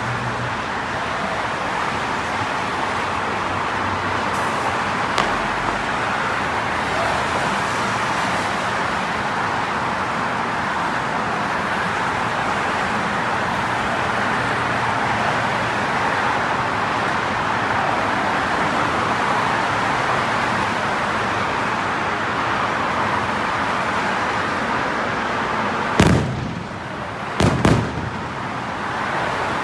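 A steady rushing background noise, then three sharp firework bangs near the end as aerial shells burst, the last two in quick succession.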